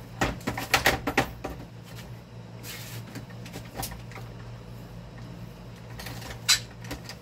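Hard clicks and knocks of tools and small parts being handled on a workbench, a quick cluster in the first second and a half and a single loud knock about six and a half seconds in, over a low steady hum.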